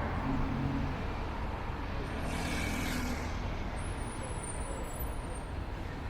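Heritage tram rolling along with a steady low rumble. A brief hiss of air comes about two and a half seconds in, and a faint high-pitched squeal follows a little later.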